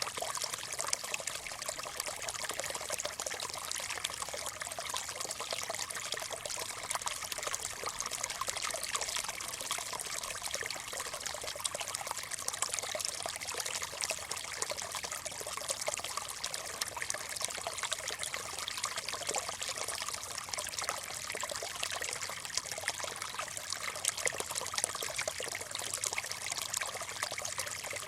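Small stream running steadily, water trickling and splashing over stones.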